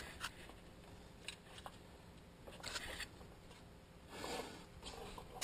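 Faint clicks and short scrapes of hand tools and metal parts being handled while unbolting the belt tensioner.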